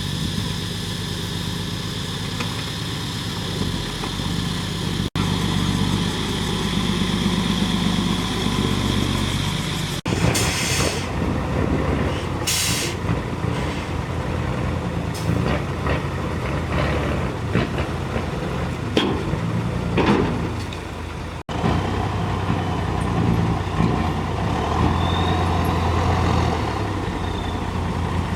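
Diesel engines of a JCB 3DX backhoe loader and Tata dump trucks running steadily, with abrupt breaks in the sound a few times. Two short hisses of air from truck air brakes come about ten and twelve seconds in.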